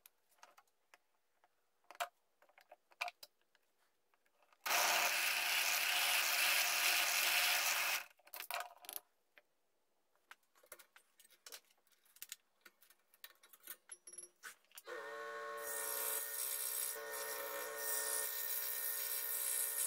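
A bench drill press bores a hole through a small wooden blank for about three seconds, then small taps and clicks of handling the piece. About fifteen seconds in, a scroll saw starts up and runs with a steady motor hum.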